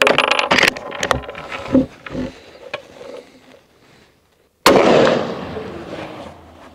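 A single rifle shot from a Howa 1500 Superlite bolt-action hunting rifle about four and a half seconds in, its report echoing away over about two seconds. Before it comes a run of sharp metallic clicks and knocks.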